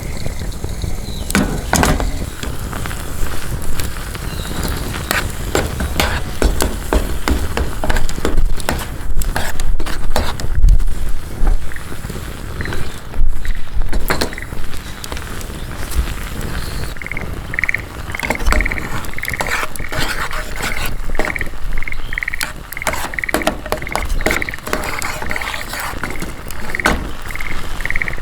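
Wood campfire crackling and popping in a steady run of sharp snaps. From just past the middle, a short call repeats about twice a second from an animal, a frog or bird.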